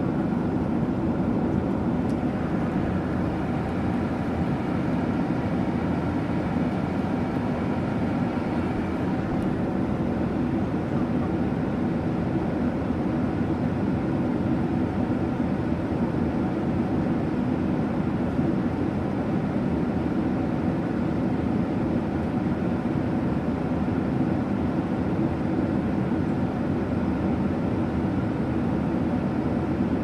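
Airliner cabin noise in flight: the even, steady drone of the engines and rushing air, deepest and strongest in the low range, with no change throughout.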